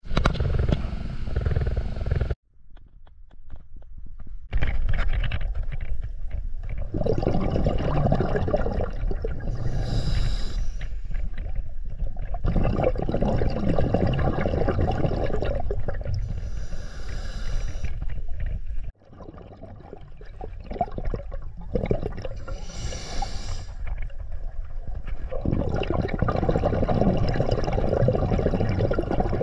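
Scuba diver breathing underwater through a regulator: long bubbling rumbles of exhaled air with a short hiss of inhalation every six or seven seconds. The sound drops out abruptly twice.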